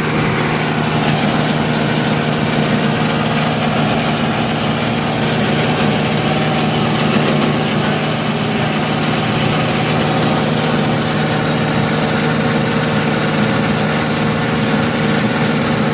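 Rice husk grinding mill running steadily, a constant mechanical hum with several steady tones and no change in speed.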